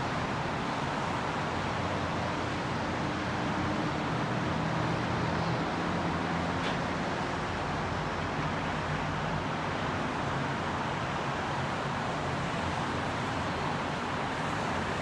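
Steady roar of heavy freeway traffic heard from above, with a low engine hum from a passing heavy vehicle through the middle stretch.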